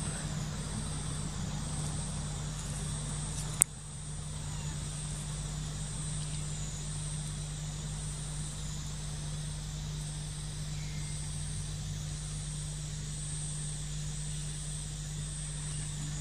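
Steady outdoor ambience of insects buzzing at a high pitch, their chorus rising and falling in regular pulses, over a low steady hum. A single sharp click about three and a half seconds in is the loudest moment.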